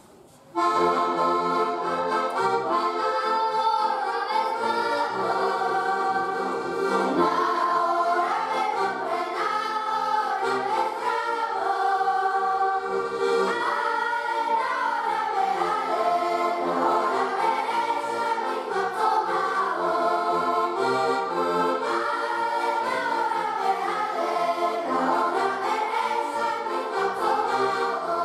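A children's choir singing a song together, accompanied by two button accordions. The music starts about half a second in.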